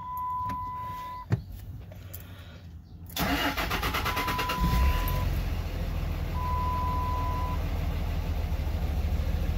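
Common-rail 5.9 Cummins turbo-diesel straight-six cranked by the starter about three seconds in, catching after about a second and a half of cranking and settling into a steady idle: a prompt start after the fuel system was primed following the relief valve replacement. A steady electronic dash beep ends about a second in, and two more beeps sound while the engine starts and runs.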